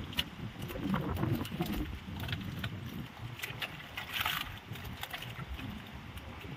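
Water sloshing and splashing, with scattered small knocks and a louder splash about four seconds in.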